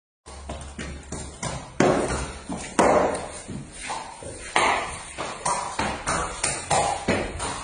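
Horse's hooves clopping on a hard tiled floor at a walk, about two to three steps a second, each step a sharp knock that rings briefly.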